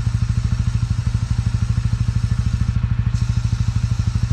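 TVS motorcycle engine idling steadily, with an even pulse of about a dozen beats a second.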